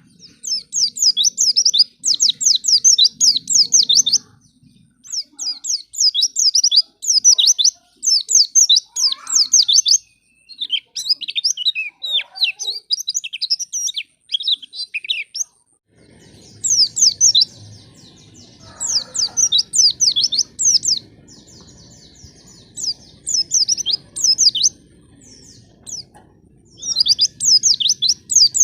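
White-eye (pleci) song: rapid, high twittering chirps in bursts of about a second, repeating with short gaps. A low background rumble comes in about halfway through.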